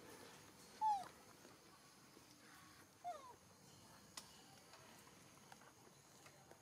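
Macaque giving two short, high squeaky calls that fall in pitch, about two seconds apart, the first the louder.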